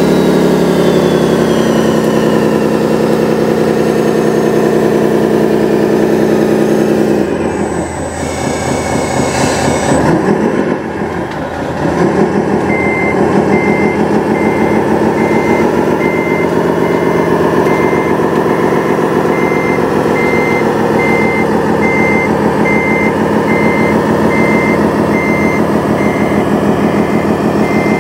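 Radio-controlled bulldozer's simulated diesel engine sound running, falling in pitch at first and wavering briefly before settling. A reversing alarm beeps at an even pace through the second half.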